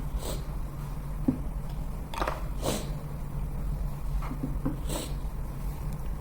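Handling noises from a phone box and its packaging: soft taps, clicks and rustles at irregular moments, over a steady low hum.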